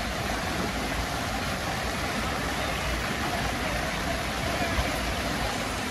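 Steady rushing of fast-flowing floodwater pouring out of overflowing ponds after heavy rain: a dense, even rush with a heavy low rumble.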